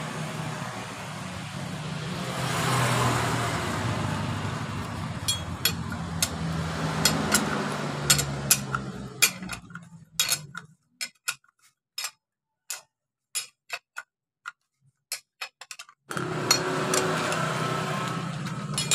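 Metal clicks and taps as a Yamaha Mio Smile's CVT clutch shoe set, driven pulley and a wrench are handled and fitted together, over a steady rumble of road traffic. The rumble drops away for several seconds in the middle, leaving only the clicks.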